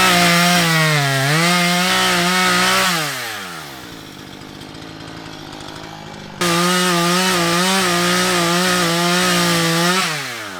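Two-stroke chainsaw at full throttle, briefly dipping in pitch under load, then revving down to idle about three seconds in. It comes back abruptly at full revs about six seconds in and winds down again near the end.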